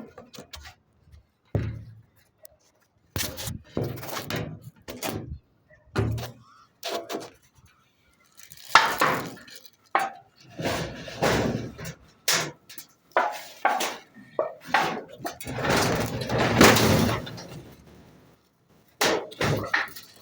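Intermittent clanking and knocking of metal parts and tools being handled, in irregular bursts with short silences between.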